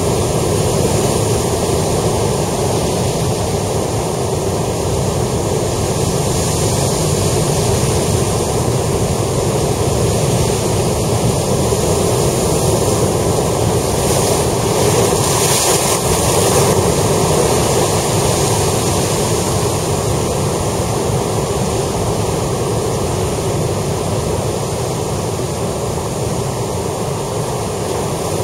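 Heavy surf breaking and churning over rocks on a rocky shore, a steady loud wash of water. About halfway through, a larger wave crashes and the hiss of spray grows brighter for a few seconds.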